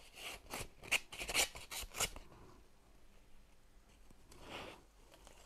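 A knife slitting open a paper envelope: a quick run of short papery rasps over the first two seconds, then one longer, softer rasp near the end.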